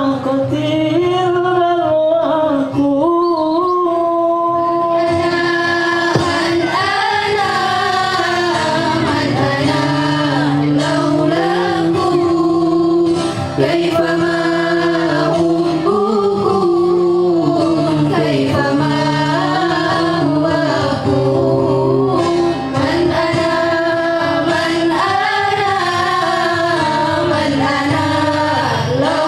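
Sholawat, an Islamic devotional song, sung by a group of voices over steady musical accompaniment.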